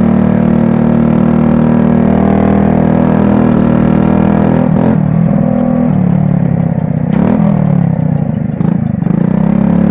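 50cc motorcycle with a straight-through exhaust running hard at steady revs, the engine note dropping and climbing back about five seconds in and again between seven and nine seconds as the throttle is eased and reopened.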